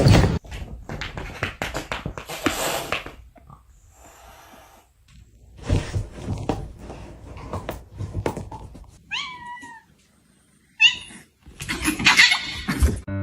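A cat meowing: two short calls about nine and eleven seconds in, among scattered knocks and rustling.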